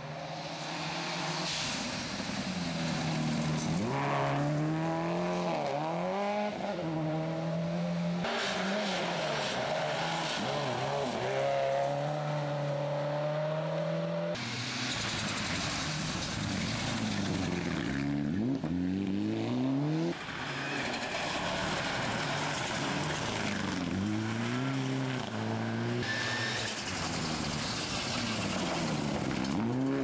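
Rally cars, among them a Subaru Impreza and a Mitsubishi Lancer Evolution with turbocharged four-cylinder engines, taken one after another through a gravel corner at race pace: each engine revs hard, its pitch climbing and dropping through quick gear changes and off-throttle lifts. The sound jumps from car to car about every six seconds at abrupt cuts.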